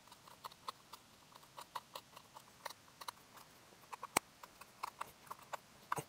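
Out-the-front knife's half-serrated 440C stainless blade chopping through 1/4-inch manila rope onto a plastic cutting board: faint quick clicks, about five a second, with one sharper click about four seconds in.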